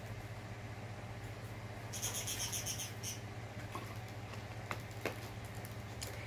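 A plastic water bottle handled while drinking: a brief crinkling crackle about two seconds in, then a few soft clicks, over a steady low hum.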